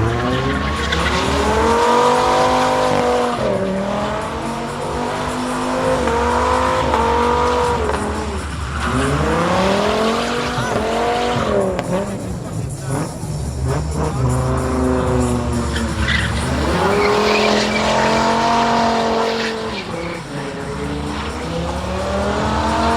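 Car engine revving hard during a tyre burnout, climbing and dropping in pitch in repeated surges every few seconds, over the hiss and squeal of spinning tyres.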